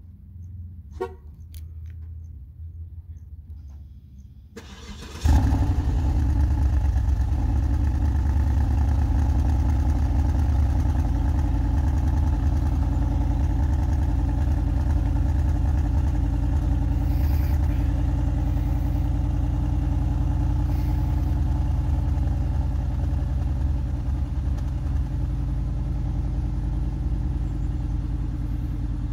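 2006 Cadillac DTS 4.6 L Northstar V8 cold start, with the exhaust resonator removed: the engine fires about five seconds in and settles into a loud, steady fast idle with a deep exhaust rumble.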